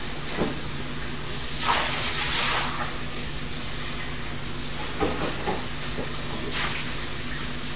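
Water running and splashing in a kitchen sink as a pizza pan is washed by hand. The splashing swells about two seconds in, with a few light knocks against the sink.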